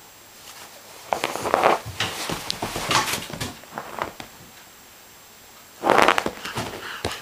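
Young Irish terrier puppy playing, with short bursts of yapping and scuffling against a sofa: a cluster from about one to three and a half seconds in, and another sharp burst near six seconds.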